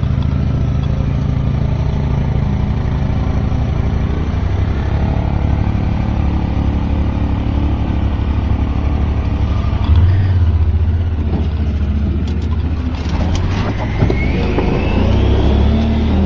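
Boat motor running steadily under way, with a rising whine near the end as it speeds up.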